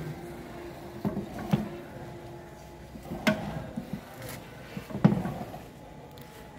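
Tag hole drilling machine punching holes in a stack of paper tags: a sharp knock each time the twin hollow-drill head comes down, four main strokes at irregular spacing with a few lighter ones, over a faint steady motor hum.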